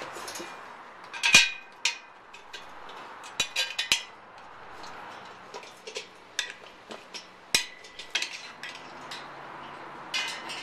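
Scattered sharp metallic clinks and knocks from bolts and tools being handled against a rocking chair's metal frame during assembly, the loudest about a second and a half in.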